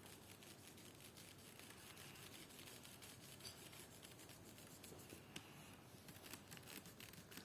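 Faint, quick back-and-forth strokes of a marker colouring in on paper, with a light tick or two.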